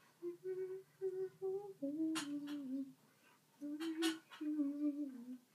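A girl humming a wordless tune in short held notes that step up and down in pitch, with a few sharp clicks between phrases.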